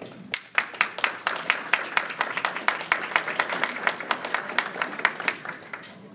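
A small audience applauding, with individual claps standing out. It starts just after the beginning and dies away near the end.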